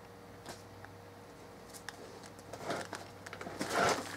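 Rustling and light clicking of comic books being picked through and handled, with a louder rustle just before the end.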